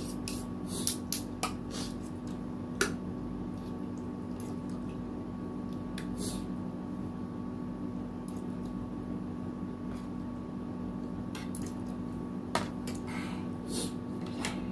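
Spoons and forks clinking now and then against a soup bowl and plates, with wet slurping and chewing of noodle soup, over a steady hum in the room.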